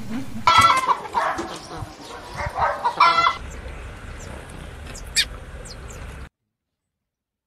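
Several short, harsh, hen-like clucking calls in the first three seconds, then a low hum with one faint high chirp. All sound cuts off abruptly about six seconds in.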